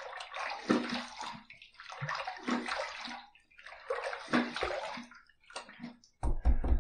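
Water splashed with the hands at a bathroom sink in three separate bursts, about a second each, rinsing shaving lather away after the final razor pass. A few short clicks and a low thump follow near the end.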